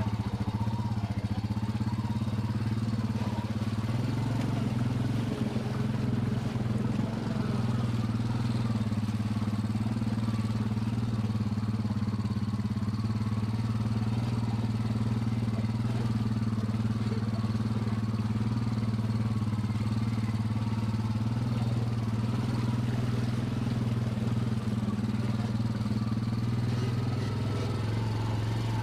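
Trail bike's engine running at a steady, unchanging pitch while riding along the trail.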